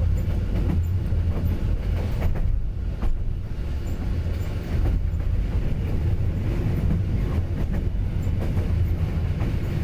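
Train running along the track: a steady low rumble with occasional clicks of the wheels over the rails.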